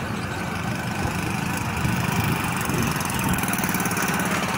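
Engine of a police pickup truck idling steadily close by, a fast even chugging.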